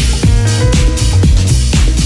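Electronic dance music from a deep house DJ mix: a steady kick drum about two beats a second, with hi-hats between the kicks over a sustained bass line and held synth notes.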